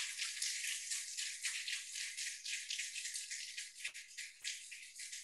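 Audience applauding, a thin, hissy clapping that dies away, with a few scattered single claps near the end.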